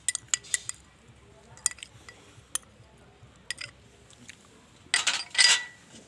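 Kitchen utensils clinking as chopped green chillies are tipped into a bowl of gram flour: a few sharp separate clinks, then a busier clatter with a short ringing note about five seconds in.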